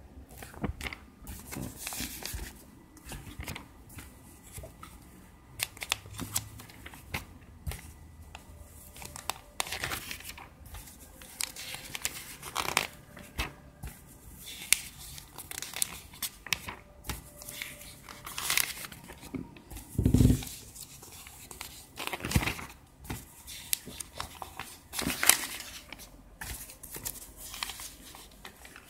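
Glossy paper pages of a thick catalogue being turned and handled: repeated, irregularly spaced rustles and flips. There is a dull bump about two-thirds of the way through.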